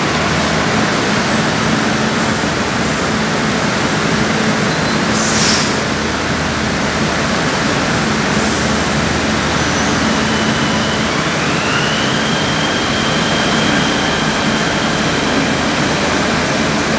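Delhi Metro train coming to a stop at an underground platform: a steady rush of train and platform noise with a low hum. There is a short hiss about five seconds in, and a faint whine rises a little past eleven seconds and then holds.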